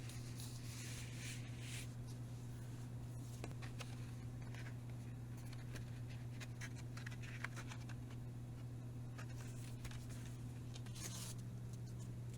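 Packaging handled by hand: scattered rustles, scrapes and light clicks over a steady low electrical hum.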